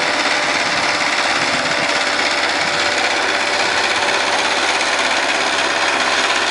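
Power tiller engine running steadily with a fast, even chatter as it ploughs a paddy field.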